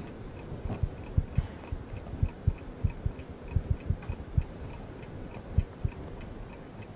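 Quiz countdown-timer sound effect: steady fast clock ticking, about four ticks a second, with irregular soft low thuds under it.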